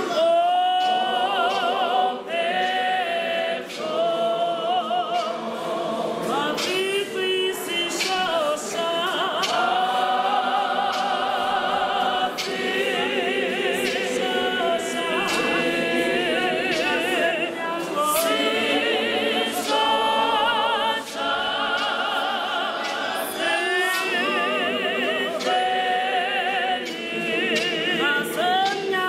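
A choir of women and girls singing a cappella, many voices together, with long held notes that waver with vibrato.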